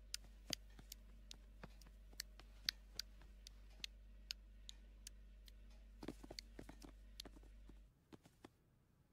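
Faint, light tapping footsteps of cartoon cats padding along, about two or three soft ticks a second, with a quicker flurry of taps about six seconds in, then silence near the end.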